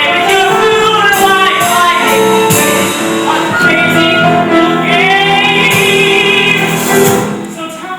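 Singers performing a musical-theatre number with accompaniment, the song closing on a held final note about seven seconds in, after which the sound dies away.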